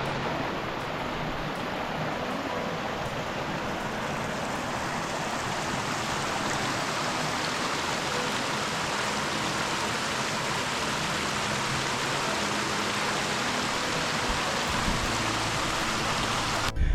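Steady rush of flowing stream water, cutting off abruptly near the end.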